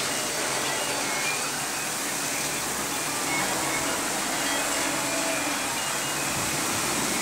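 Heavy wind-driven rain with strong wind blowing, a steady hiss.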